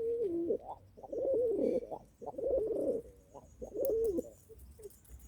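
Pigeon cooing in four low, wavering calls about a second apart, a throaty sound very like croaking.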